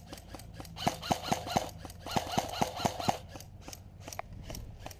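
Airsoft guns firing: two quick strings of about four sharp shots each, about a second in and again past the two-second mark, with scattered fainter clicks of more shots around them.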